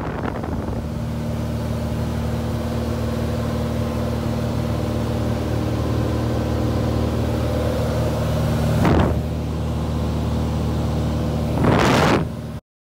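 Single-engine piston airplane's engine and propeller droning steadily at cruise, heard inside the cabin. Two brief rushes of noise come about nine seconds in and again near the end, and the sound then cuts off suddenly.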